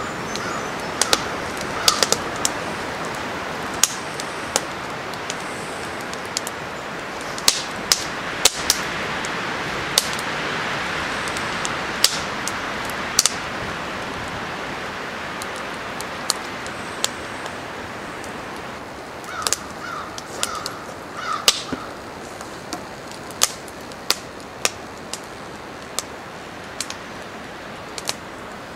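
Split-wood kindling fire burning and crackling, with sharp pops scattered throughout over wind that swells through the middle. A bird calls in short notes near the start and in a quick run of about four, two-thirds of the way in.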